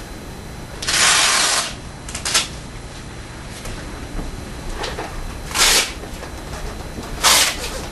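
Straps on a patient standing frame being pulled open: four short rasping sounds, the longest about a second in, a brief one near two seconds, and two more near five and a half and seven seconds.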